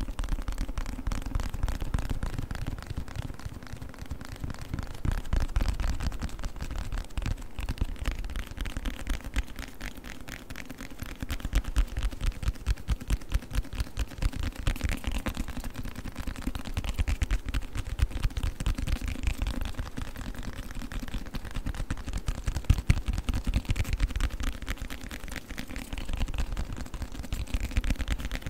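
Fast, continuous tapping on a book, many quick taps a second with louder runs now and then.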